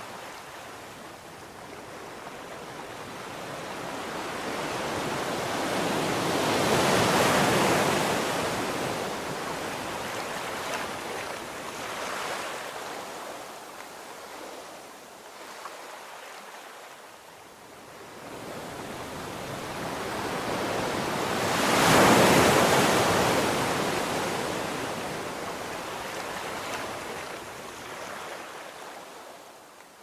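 Ocean surf breaking on a sandy beach, a steady wash of rushing noise that swells twice, about a quarter of the way in and again about three-quarters through, as waves break and run up the sand, easing off between them.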